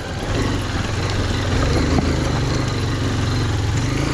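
Honda XR150L's single-cylinder four-stroke engine running steadily at low revs as the motorcycle rides slowly over a rough, rocky dirt track, with a few short knocks.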